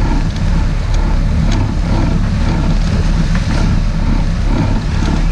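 Sport-fishing boat's engine running steadily, with water rushing and splashing along the hull.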